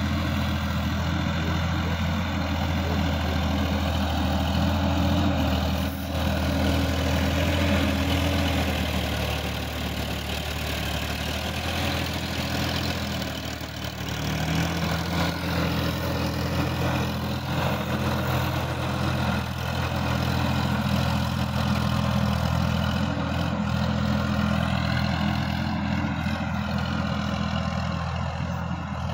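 Sonalika DI-50 RX tractor's diesel engine running steadily under load while it drives a rotary tiller through wet soil. The engine note shifts slightly about halfway through.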